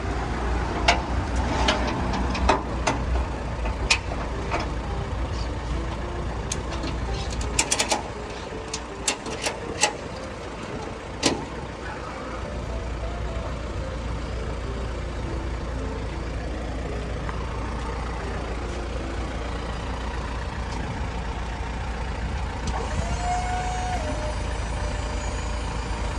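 Flatbed tow truck's engine idling, with sharp metallic clanks and rattles from its tie-downs and hooks over the first dozen seconds, then a steadier running hum as the hydraulic bed is tilted to unload the car.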